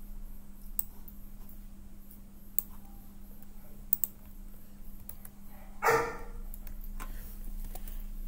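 Scattered clicks of a computer mouse and keyboard over a steady electrical hum, with a single short, loud cry about six seconds in.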